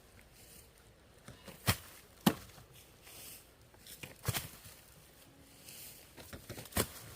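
A hand tool striking in four sharp, irregularly spaced chopping blows, like a hoe or blade cutting into earth or wood.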